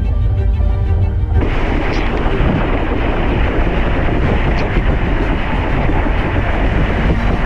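Background music for about the first second and a half, then it cuts to a windsurf board under sail: wind buffeting an action camera's microphone with rushing water, a loud steady rumbling noise.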